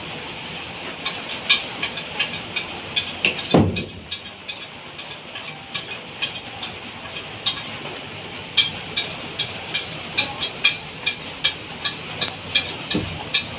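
Steady rain hiss with many sharp taps of drops scattered over it, and a low thump about three and a half seconds in and another near the end.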